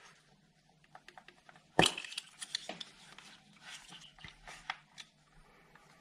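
Hands handling the wiring and electrical connectors on top of a car engine: one sharp click about two seconds in, then a run of small irregular clicks and rustles that die away near the end.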